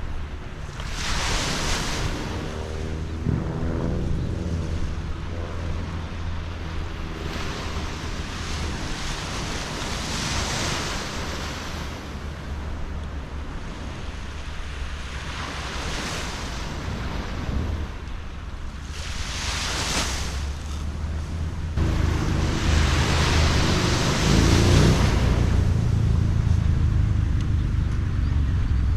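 Surf breaking and washing ashore, swelling every few seconds, with wind rumbling on the microphone, heavier near the end.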